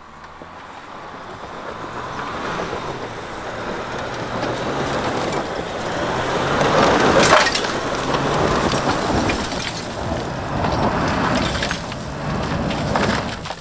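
Jeep Wrangler crawling up a rocky trail: its tyres crunch and grind over loose rock and gravel, with sharp cracks of stones, over a steady low engine drone. The crunching grows louder to a peak about halfway through.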